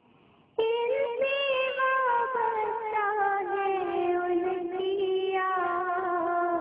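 A single high voice singing a naat, a long drawn-out line whose pitch wavers and slides slowly downward, starting after a brief pause about half a second in.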